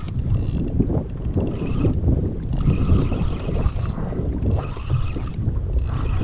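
Penn Spinfisher spinning reel being cranked in short spurts, its gears whining each time the handle turns, as a hooked fish is pumped in on a heavily bent rod. Wind buffets the microphone throughout as a steady low rumble.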